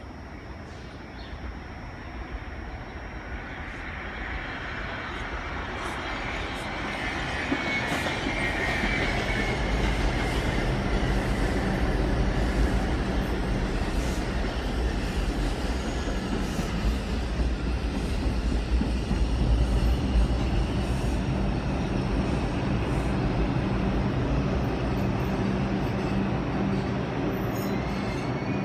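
NYC Subway R142 train approaching, growing louder over the first eight to ten seconds with a brief high whine. It then runs on steadily with a low hum and scattered wheel clicks on the rails.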